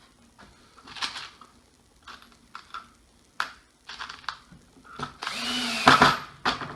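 Scattered light clicks and knocks of tools being handled, then an electric drill runs for about a second and a half near the end, a steady motor whine that is the loudest sound here.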